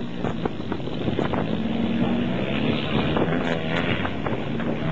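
Off-road 4x4 engine running under load as the vehicle drives through loose sand.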